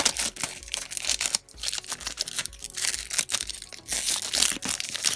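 Plastic wrapper of a Panini Court Kings basketball card pack being torn open and crinkled: a run of crackling rustles, with a sharp crackle right at the start. Faint background music with a steady beat underneath.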